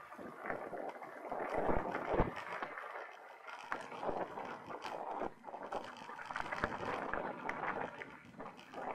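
Mountain bike being ridden over a rough dirt trail: steady tyre noise on the ground with irregular clicks and rattles from the bike, and wind buffeting the microphone.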